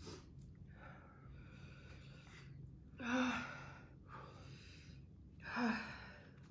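A person's heavy breathing: two loud, breathy exhalations with a short voiced start, about three seconds in and again near the end, with softer breaths between. These are the huffing breaths of someone taking the burn of extremely hot chili cheese puffs.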